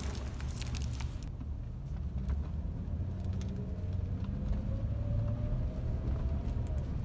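Low, steady rumble of engine and road noise inside the cabin of a moving Chevrolet SUV, with a faint whine slowly rising in pitch in the middle.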